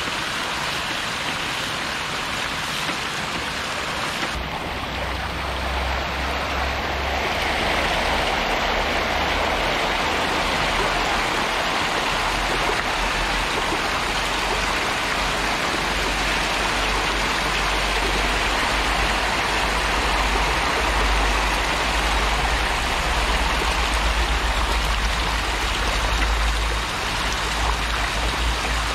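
Dense, steady splashing and churning of water from a large crowd of catfish thrashing at the surface of a packed concrete tank as they feed. A low rumble joins about four seconds in.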